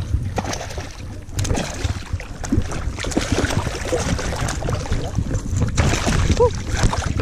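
Shallow water splashing and sloshing close by as a hooked red drum is played in to the wading angler, with wind rumbling on the microphone.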